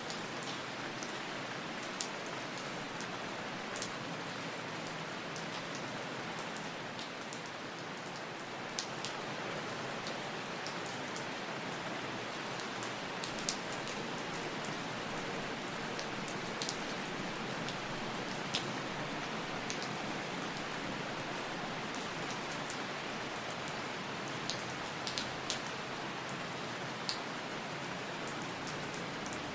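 Steady rain falling, an even hiss with scattered sharp drop ticks every second or so.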